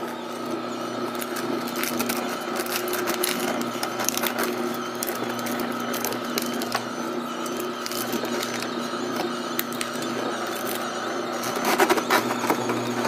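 Tribest Green Star twin-gear slow juicer running: a steady motor and gear hum with frequent crackling clicks as romaine lettuce is crushed between the gears, the clicks thickening near the end.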